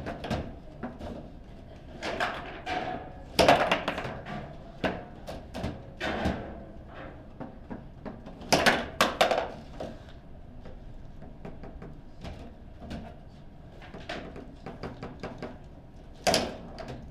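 Table football play: irregular sharp clacks and knocks as the plastic player figures strike the ball and the ball hits the table walls. The loudest hits come about 3.5 seconds in, a cluster around 9 seconds, and one near 16 seconds.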